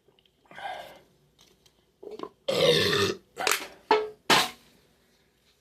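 A person burping on request: a fainter burp about half a second in, then a run of loud burps, the longest about two and a half seconds in, followed by several shorter ones.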